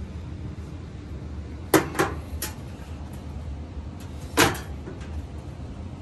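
Clacks and knocks of a Miele clothes dryer's front panel being pulled off and handled: three quick clacks about two seconds in, then a louder knock a little after four seconds.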